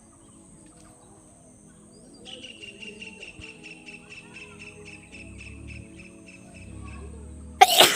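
A rapid, even chirping runs from about two seconds in, at roughly four to five pulses a second, like a cricket or other insect. Near the end comes a short, loud, sudden blast of breath, the loudest sound here, fitting a forceful nose blow or sneeze.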